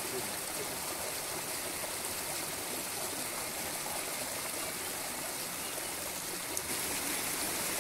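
Shallow river water running over a low rocky step and small cascades, a steady rush and trickle of water.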